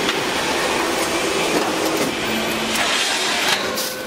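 QTJ4-30C cement hollow block making machine running: a steady mechanical din from its motor and conveyor drive, with a short hum partway through and a louder rushing stretch about three seconds in.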